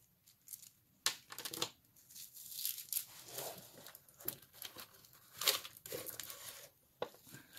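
Wooden and beaded jewelry clicking and clattering as hands rummage through a glass jar of costume jewelry, with irregular clicks and scraping, rustling handling noise.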